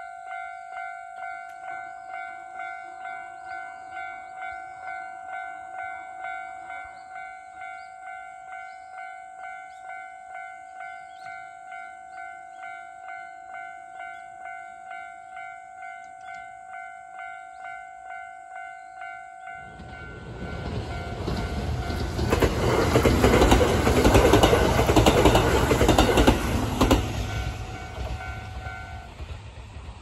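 Japanese level-crossing warning bell ringing in a quick, even rhythm. About two-thirds of the way in, a Kintetsu Osaka Line electric train rumbles through the crossing, loud for several seconds before fading. The bell stops shortly before the end.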